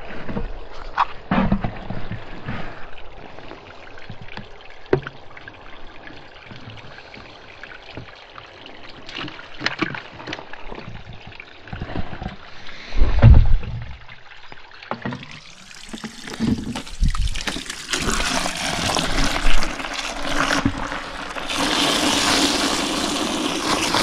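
Water from a garden hose pouring into a plastic bucket of soapy water, starting a little past the middle as a steady hiss and splash that grows louder toward the end. Before it there are scattered knocks and handling sounds, with one loud low thump around the middle.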